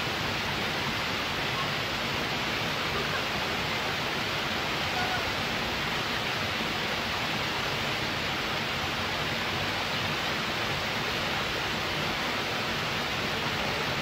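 Steady rush of falling water from a small waterfall.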